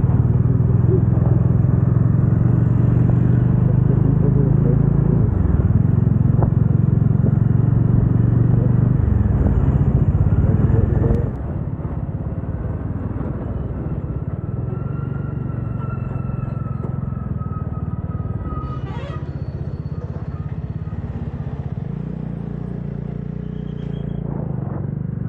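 Motorcycle engine running steadily while riding, with road noise; the sound drops noticeably in level about eleven seconds in and carries on at the lower level.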